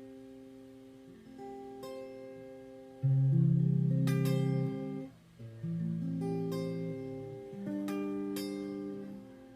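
Guitar playing an unsung instrumental passage of chords, each one struck and left to ring before the next. The loudest chord comes about three seconds in.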